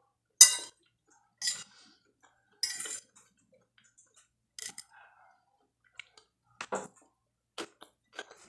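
Metal fork clinking and scraping on a glass plate while scooping up rice: a string of sharp clicks and short scrapes about a second apart, the loudest just after the start, with close-up chewing between.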